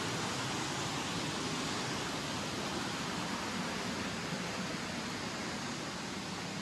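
Rushing river water in a gorge: a steady, even hiss of fast-flowing water.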